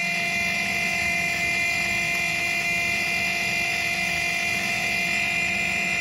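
Small DC motor resting on a plastic controller case, running at a constant speed under PWM speed control, its vibration buzzing through the case as a steady whine of several even tones.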